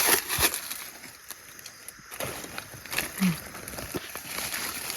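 Rustling and crackling of dry leaf litter and twigs as someone forages on the forest floor, with scattered sharp clicks and a brief low voice sound about three seconds in.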